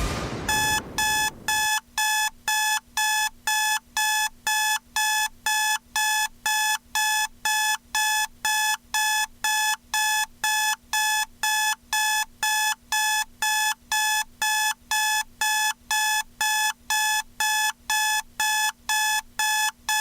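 Electronic alarm beeping: short, identical high-pitched beeps about twice a second, steady and unchanging, starting about half a second in.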